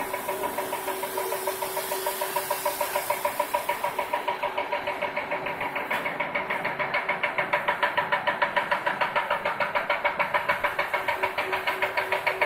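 Snack food production line machinery running, a rapid, regular knocking of several beats a second over a steady mechanical hum, with a hiss that stops about four seconds in.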